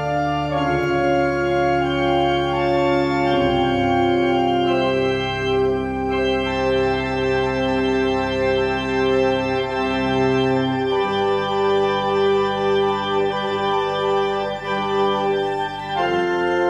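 Organ music: slow, held chords that change every few seconds.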